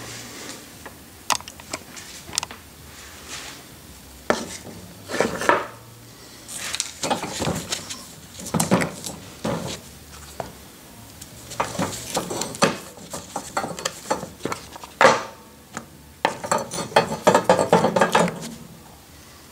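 Clinks, knocks and rubbing as a worn rear coil spring and its rubber seat and bump stop are handled and pulled apart on a workbench, with a quick run of rattling clinks near the end.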